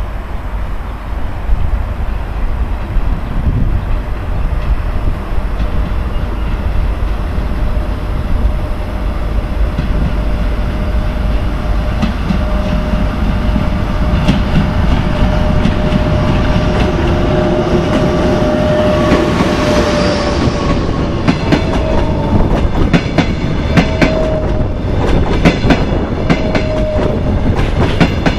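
EP1M electric locomotive hauling a passenger train, approaching and passing close by: a steady rumble that grows louder, with a whine that drops in pitch as the locomotive goes by. In the last third the coaches' wheels clack over the rail joints in a quick, uneven rhythm.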